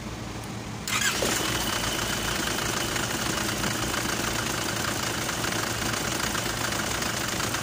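Isuzu 4JA1 four-cylinder diesel engine idling with a steady clatter while it warms up to test the coolant after a cylinder head replacement; it grows suddenly louder about a second in, then runs on evenly.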